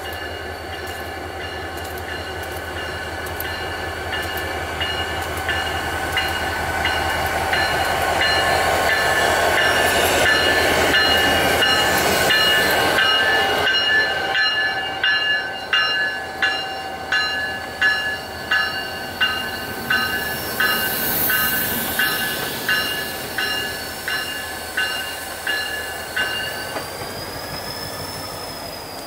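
New England Central diesel freight train passing slowly: the locomotive's engine grows louder as it approaches and goes by, then the freight cars' wheels clack over the rail joints about once a second, with a high ringing tone throughout. The clacking fades away near the end as the last cars pass.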